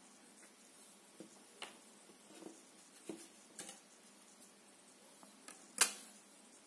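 Scattered light clicks and taps of hard plastic being handled on a tabletop, with one louder, sharper click near the end.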